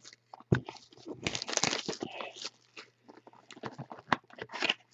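Cardboard of a Topps Finest trading-card box being opened and handled: crinkling and scraping of the card stock with scattered clicks, and sharp taps about half a second in and about four seconds in. A faint steady low hum lies underneath.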